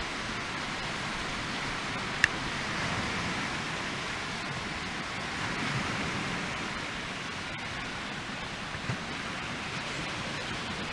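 Split-log Swedish torch fire burning with a steady hiss, with one sharp crackle of the wood about two seconds in.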